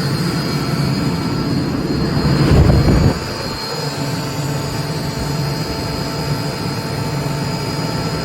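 Atlas Copco 11 kW direct-drive screw air compressor running with a steady hum. About two seconds in it swells into a louder rushing surge that cuts off abruptly after about a second, and then it runs on steadily.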